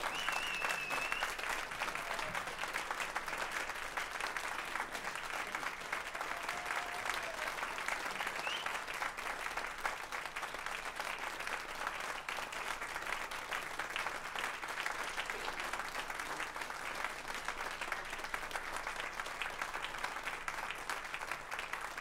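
Audience applauding, a steady mass of clapping.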